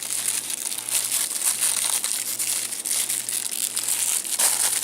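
Packaging crinkling and rustling without a break as packs of firecrackers are handled and rummaged through in a bag.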